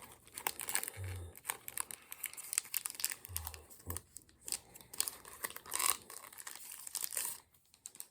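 Foil wrapper of a Pokémon card booster pack crinkling and tearing as it is opened by hand, with a few dull handling thumps. The crinkling stops about half a second before the end.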